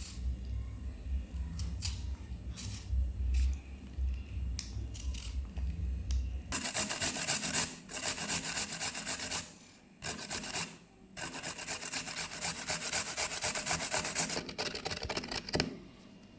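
A carrot being scraped against a blade: rasping strokes in runs of a few seconds with short breaks. Before them, about the first six seconds hold only light clicks and handling.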